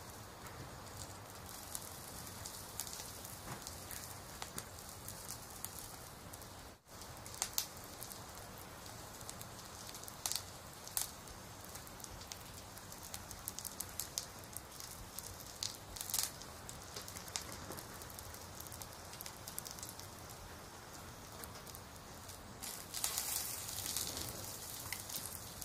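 Crackling-fire ambience: a steady soft hiss with scattered crackles and pops, cutting out for an instant about seven seconds in and growing a little louder near the end.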